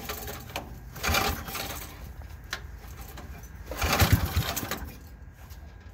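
Briggs & Stratton 5 HP single-cylinder engine on a Huffy mini racer running at idle, with two louder bursts of noise about a second in and again about four seconds in.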